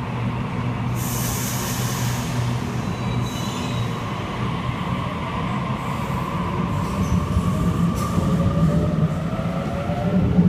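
Sydney Trains double-deck electric trains, a Waratah (A set) and an H set, pulling out of the platforms with a steady low hum. There is a burst of hissing about a second in, and from about six seconds a whine that rises in pitch as the trains pick up speed.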